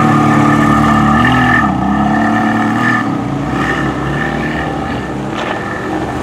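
Ferrari Mondial T Cabriolet's 3.4-litre V8 running as the car drives slowly past close by. Its pitch dips and climbs back about a second and a half in, and the sound eases a little later on.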